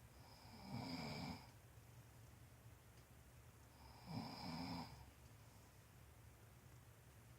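A man snoring: two snores about three seconds apart, each lasting under a second.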